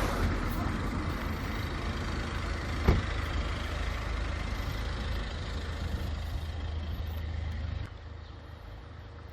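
A vehicle engine running with a steady low rumble, with a single knock about three seconds in; the rumble drops away about eight seconds in.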